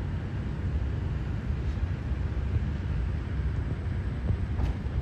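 Wind buffeting the microphone outdoors, a steady low rumble that flutters unevenly throughout.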